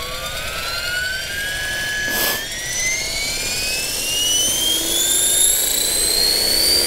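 Blade 330S electric flybarless RC helicopter spooling up on the ground before lift-off: the brushless motor and rotor give a whine that climbs steadily in pitch as the head speed builds. There is a brief rush of noise about two seconds in.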